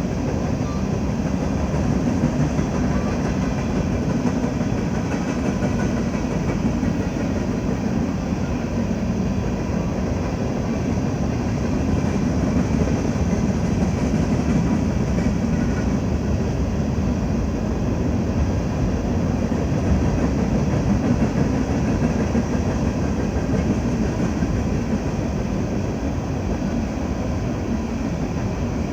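Freight train running: a steady, unbroken rumble of wheels on rail.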